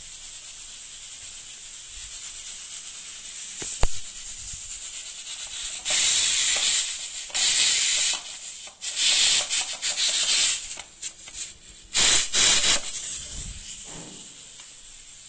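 Aluminium pressure cooker letting off steam through its valve, hand-released in several loud hissing bursts over about seven seconds, with a fainter steady hiss before and after. A single sharp click comes about four seconds in.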